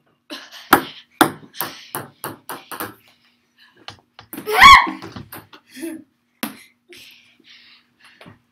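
A ping pong ball bouncing on a hard floor, the bounces coming quicker and fainter as it settles. About four and a half seconds in there is a short, loud yell, the loudest sound, followed by a few light knocks.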